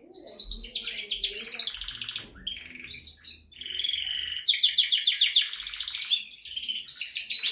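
Male domestic canary singing: fast rolling trills and warbled runs, phrase after phrase, with short breaks about two and three and a half seconds in.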